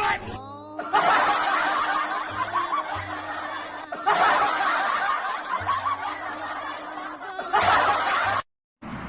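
People laughing, with music underneath; the laughter cuts off suddenly near the end.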